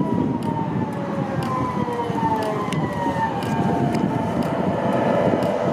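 Electric low-floor tram pulling in to a stop: its drive gives a whine of several tones that falls slowly in pitch as it slows, over a steady rumble of wheels on rail.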